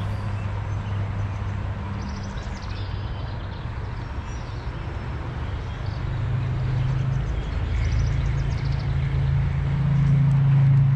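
Low, steady engine drone that grows louder and rises a little in pitch past the middle and again near the end, with faint bird chirps above it.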